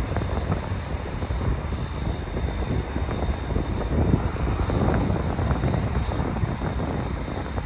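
Wind buffeting the microphone in uneven gusts, a rumbling rush that sits mostly low, over a steady low background rumble.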